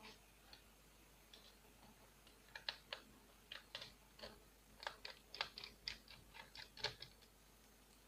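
Irregular small, sharp clicks and taps of a screwdriver and fingers working among the parts in a laptop's open underside, a dozen or so from about two and a half seconds in until near the end.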